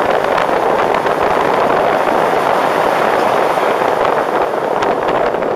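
Wind from the paraglider's airspeed blowing over the camera microphone: a loud, steady rushing noise.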